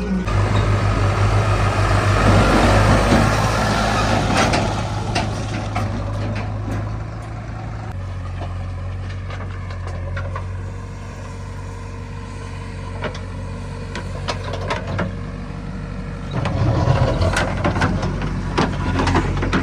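Heavy diesel engine of a working machine running steadily, louder for the first several seconds, easing off, then picking up again near the end, with scattered knocks and clanks.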